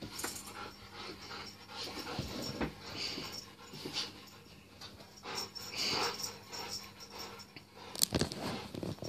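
Two Rottweilers panting hard as they jump at a dangled cat wand toy, with several sharp knocks as they leap and land, the loudest about eight seconds in.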